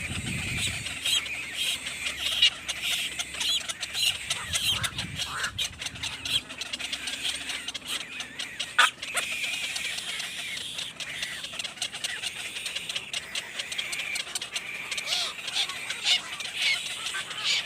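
Birds chirping continuously, a dense run of short high calls and clicks with no pause.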